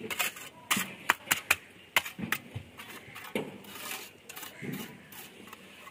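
Steel mason's trowel scraping and tapping on wet concrete: a quick run of sharp scrapes and clicks in the first two or three seconds, then a few softer scrapes.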